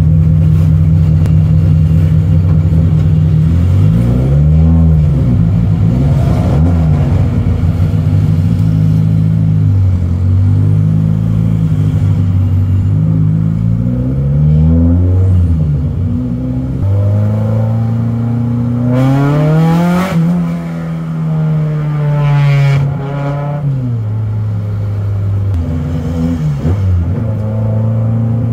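Engine of a 250 whp Peugeot 205 GTI race car, heard from inside the cabin. It runs steadily at low revs and climbs and falls back several times as the car pulls away in slow traffic. The highest climbs come about two-thirds of the way through, two sharp rises and drops, with a smaller one near the end.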